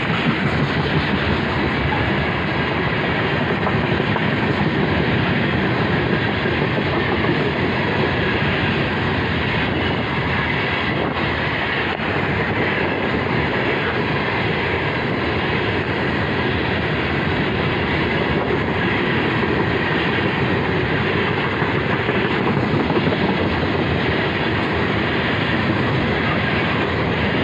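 A freight train of railroad tank cars rolling past close by: a steady, loud rumble of steel wheels on the rails, with occasional wheel clicks.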